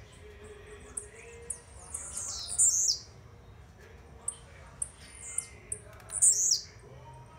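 Male blue-black grassquit (tiziu) singing: scattered short, high chirps, and twice its brief, loud falling song phrase.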